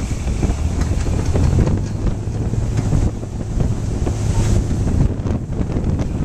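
Heavy wind buffeting the microphone over the rumble of a truck driving through deep floodwater, its wheels churning and splashing the water, with a low engine hum underneath.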